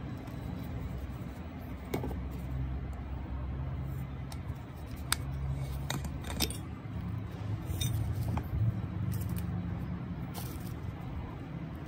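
A sport water bottle being handled: scattered sharp clicks and light knocks from its plastic cap and body as it is turned over and opened, over a steady low hum.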